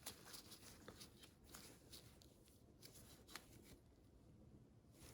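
Near silence with faint rustling and light clicks of tools being handled, dying away after about three and a half seconds.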